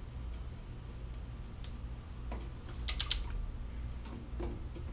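Click-type torque wrench ratcheting a lug nut tight: a few scattered metallic clicks, then a quick run of three or four ratchet clicks about three seconds in.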